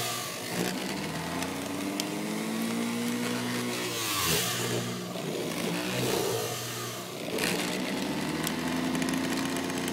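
Electric juicer's motor running on its slow setting, its whine sagging in pitch under the load of the vegetables and speeding up again a few times.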